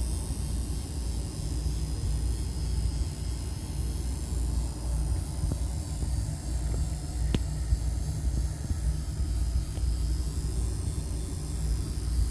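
Electrical breaker panel giving off a steady low buzzing hum. There is a single faint click about seven seconds in.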